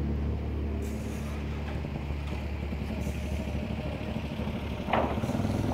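An engine running steadily as a low drone, with a short high squeak about five seconds in.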